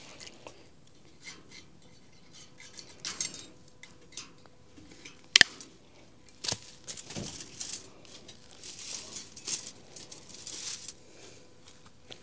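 Old chain-link fence wire being worked by hand at a freshly cut edge: irregular metallic clinks and small rattles, with one sharp click about five seconds in.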